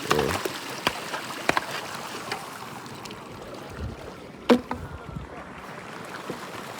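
Water splashing and sloshing, with scattered small knocks and one sharp knock about four and a half seconds in.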